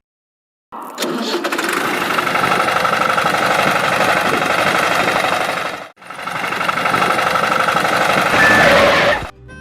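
Small motor of a homemade mini tractor running steadily. It stops briefly about six seconds in, starts again, and cuts off near the end.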